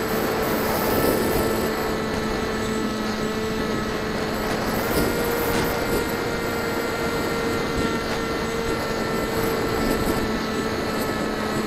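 Brushless electric pusher motor and propeller of a Bixler 1.1 RC plane whining at a steady pitch, heard from the onboard camera over wind rushing past the microphone. The pitch steps up slightly about five seconds in.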